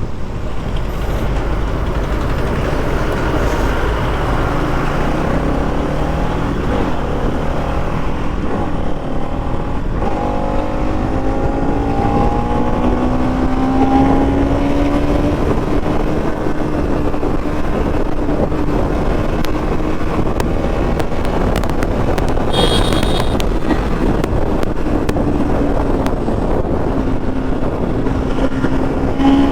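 Bajaj Pulsar NS200's single-cylinder engine pulling hard at high speed on a top-speed run, its note climbing about ten seconds in and then held steady with small dips, under heavy wind rush. A short high-pitched tone sounds about three quarters of the way through.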